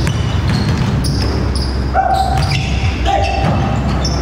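Basketball dribbled on a hardwood gym floor, heard as repeated bounces, with two short sneaker squeaks about two and three seconds in.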